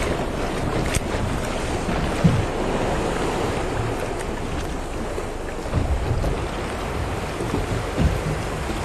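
Wind buffeting the microphone over the wash of sea and waves around a small boat, with low thumps and a single click about a second in.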